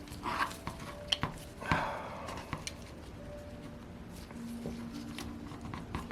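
Light clicks and knocks of small metal engine parts being handled on a workbench, with two sharper taps about one and two seconds in.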